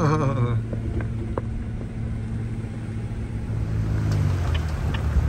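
Vehicle engine running steadily while driving, a low drone with road noise, and a few light ticks near the end.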